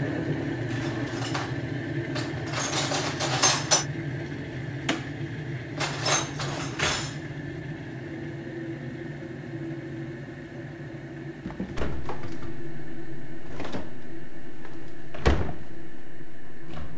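Kitchen cupboard doors and the things inside them being handled: a cluster of clicks and knocks in the first seven seconds, then a few single knocks. Underneath runs a steady hum that steps up louder about twelve seconds in.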